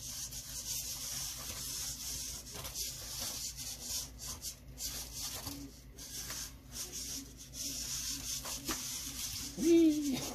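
Servo motors in a Spot Micro quadruped robot's legs buzzing and whirring in short, irregular spurts as they keep correcting its pitch and roll to hold it level; the self-balancing is still jittery. A brief, louder rising-then-falling whine stands out near the end.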